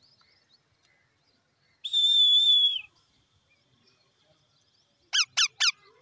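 Indian ringneck parakeets calling: one long, steady high note lasting about a second, then a few seconds later three quick shrill calls, each falling in pitch.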